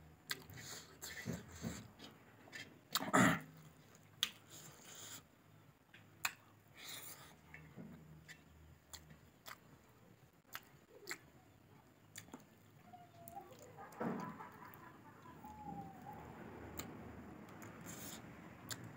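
Quiet eating sounds: fingers scraping and tapping on a metal plate while rice is gathered up and eaten by hand, with scattered mouth and lip sounds and one louder one about three seconds in. A few faint bird calls come in the second half.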